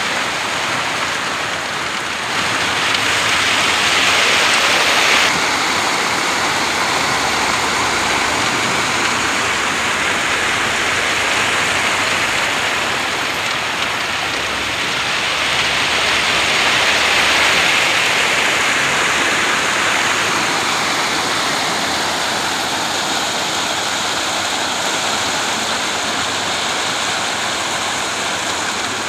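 Wet ready-mix concrete sliding and rushing down a long chute, a steady rushing hiss like running water that swells louder twice, a few seconds in and again about halfway.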